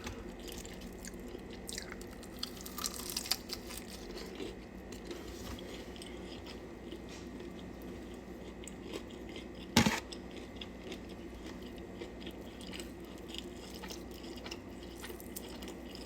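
A person chewing food close to the microphone, with crunchy bites clustered in the first few seconds and one sharp click about ten seconds in, over a faint steady hum.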